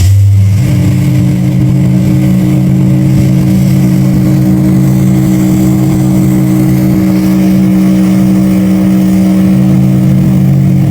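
Ocean liner's whistle sounding one long, loud blast: a deep chord of several low notes held steady together.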